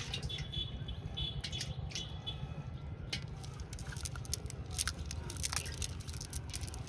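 Nylon cast net being handled as small fish and crabs are picked out of its mesh: scattered clicks and rustles over a steady low rumble.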